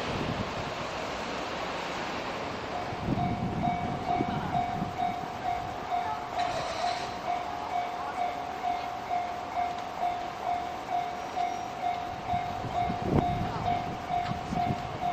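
Japanese level-crossing warning bell that starts about three seconds in and rings in an even, repeating beat over a steady rushing noise.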